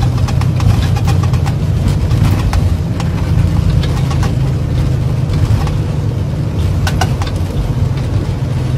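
Cockpit noise of an Embraer 175 rolling on the runway just after touchdown: a steady, loud low rumble from the engines and landing gear, with a few light clicks and rattles about seven seconds in.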